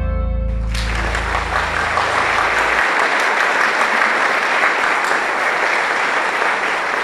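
Audience applauding, breaking out about half a second in as the music ends; a low tone from the music lingers under the clapping for the first few seconds.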